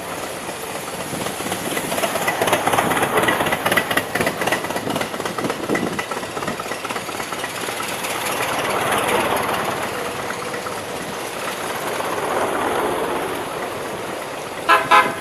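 Old cars passing one after another, their engines rising and fading as each goes by, with a fast clattering rattle as one passes. Near the end a horn sounds two short blasts.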